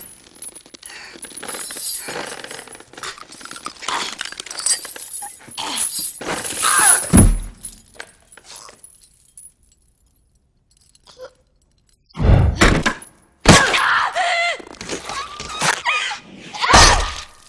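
Fight-scene sound effects: crashing and breaking impacts with heavy thuds, in a large reverberant hall. There is a quiet gap of a few seconds past the middle, then more sharp hits.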